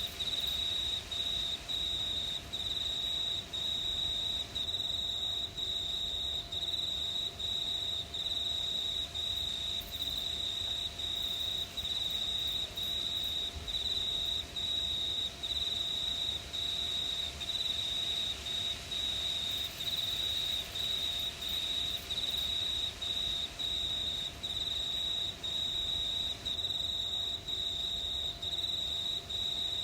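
Crickets chirping: a high, continuous trill broken by short gaps about twice a second.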